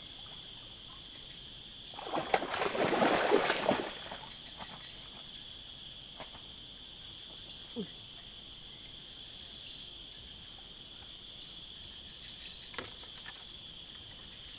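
Steady high-pitched drone of forest insects such as crickets and cicadas. About two seconds in, a loud rough burst of noise lasts roughly two seconds, then a few faint ticks follow.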